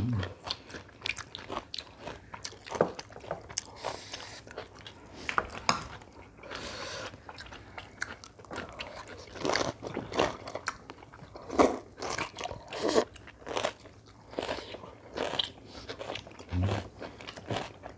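Close-up eating sounds: many short crunchy bites and chewing at irregular intervals, people eating Korean home-cooked dishes.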